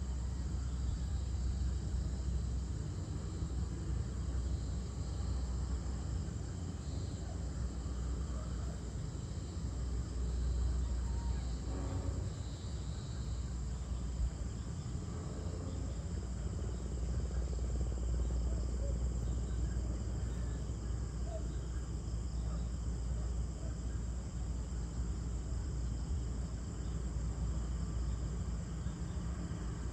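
Evening outdoor ambience: crickets and other insects chirring steadily, over a low steady rumble.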